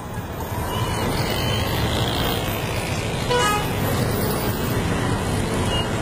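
Steady outdoor traffic noise, with a brief toot about three and a half seconds in.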